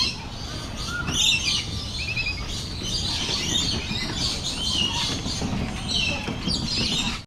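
Many birds chirping and calling together, a mix of short chirps and quick trills, over a steady low background rumble.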